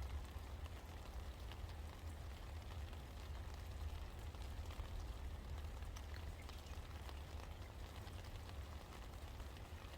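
Steady rain falling, with many small scattered drop ticks on surfaces over an even hiss and a low rumble underneath.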